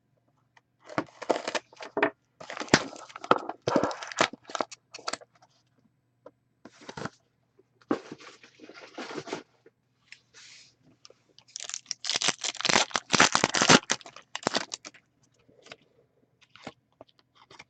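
Sealed box of Upper Deck hockey trading cards being opened by hand: plastic shrink wrap torn and crinkled, with cardboard scraping, in three spells of rustling with short pauses between, the last and loudest about twelve seconds in.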